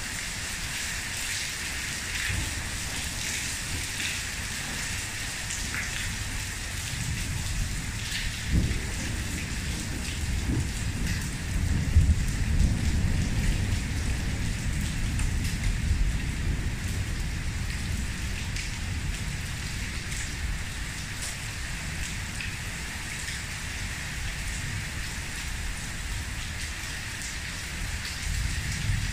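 Heavy thunderstorm rain pouring steadily onto a pool and paver patio. A low rumble builds about seven seconds in, is loudest midway and fades out a few seconds later.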